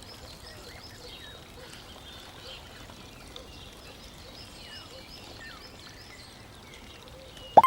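Small birds chirping faintly over a steady background hiss. Near the end a sudden loud rising sweep breaks in and leads into a chime.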